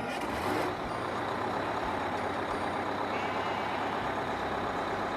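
School bus engine running steadily, heard as an even mechanical noise.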